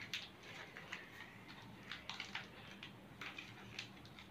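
Faint, scattered small clicks and crackles of a child eating a chocolate bar, from mouth sounds and the handled wrapper.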